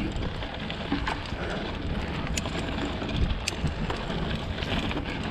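Mountain bike riding over a dry, rocky dirt trail: tyre crunch on dirt and stones with scattered sharp clicks and rattles from the bike, under steady wind noise on the action camera's microphone.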